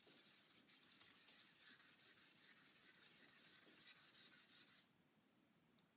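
Hand wet sanding of a waterborne lacquer guitar finish with damp sandpaper: faint back-and-forth rubbing strokes that stop about five seconds in.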